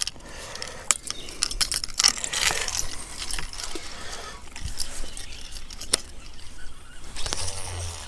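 Scattered light clicks and small metallic rattles of fishing tackle being handled: a baitcasting rod and reel with a lure on the line.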